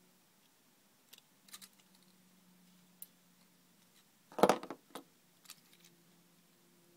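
Small plastic clicks and knocks of a Philips CD transport mechanism being handled and put back together by hand. A louder clatter of several quick knocks comes about four and a half seconds in.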